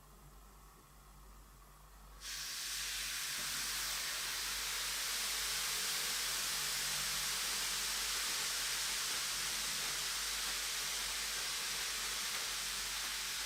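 Large soap-scented bath bomb fizzing in water: a steady, even hiss that starts suddenly about two seconds in.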